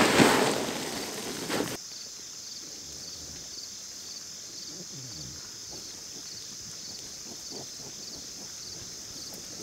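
Grain feed pouring out of a sack onto the grass, a loud rustling rush that cuts off suddenly about two seconds in. After it, a steady chirring of crickets with faint footfalls.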